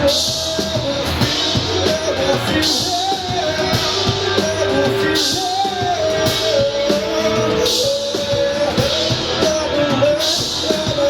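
Live rock band playing: drums, guitars and a singing voice carrying a wavering melody, with cymbal crashes every couple of seconds.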